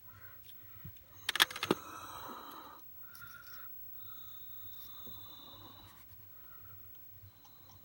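Small parts and tools being handled during a bench repair: a quick cluster of sharp clicks about a second and a half in, followed by scraping and fainter rustling.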